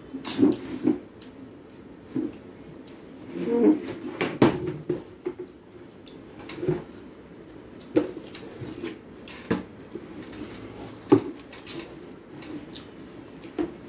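Eating by hand from a stainless steel plate: fingertips tapping and scraping on the steel while picking apart a piece of fish, giving irregular sharp clicks every second or two.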